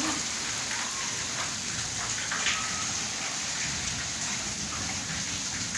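Steady rain falling and pattering on surfaces, an even hiss.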